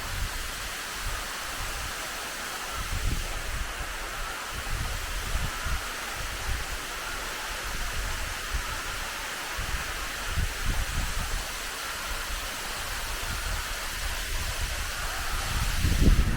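Waterfall pouring into its pool, a steady rush of falling water, with gusts of wind buffeting the microphone now and then and more strongly near the end.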